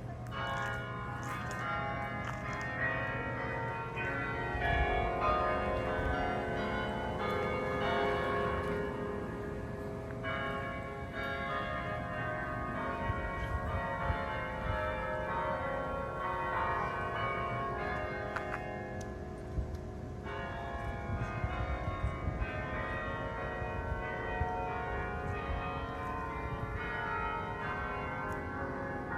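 Chime of tower bells at Cornell's central tower ringing out a tune, many notes overlapping and lingering. The ringing pauses briefly twice between phrases.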